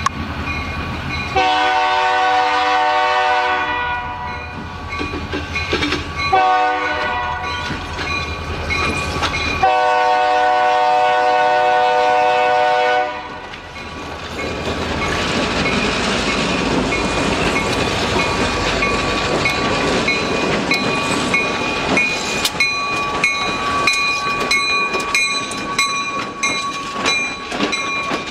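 Air horn of an EMD SD40-2 diesel locomotive sounding three blasts for a grade crossing, the last the longest. The locomotives' engines and wheels then rumble past close by, with sharp clicks as the wheels cross the rails of the road crossing near the end.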